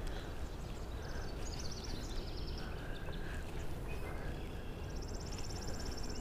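Songbirds calling outdoors: a run of short high chirps in the first half and a rapid, dry high trill starting about five seconds in, over a steady low rumble of wind and water noise.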